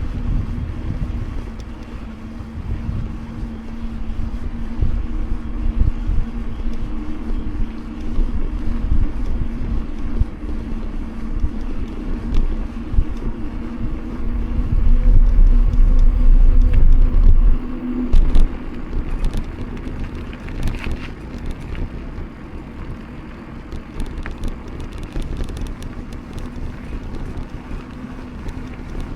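Mountain bike rolling along a paved road: a steady tyre hum over low wind rumble on the microphone. The rumble swells for about three seconds past the middle.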